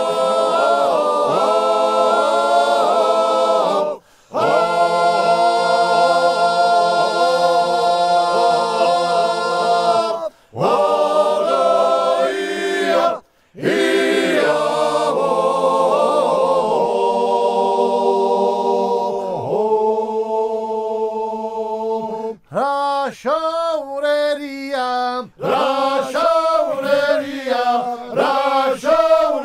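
Male choir singing a Georgian polyphonic folk song a cappella, several voices holding chords together in long phrases with a few short breaks between them. The voices move more quickly near the end.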